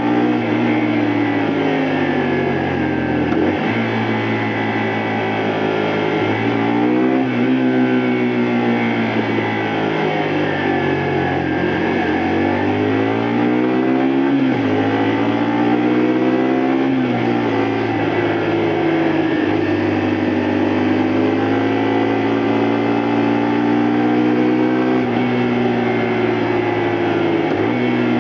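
Honda Varadero 125's small V-twin engine pulling under way. It rises in pitch with the revs, then drops sharply at each gear change, several times over.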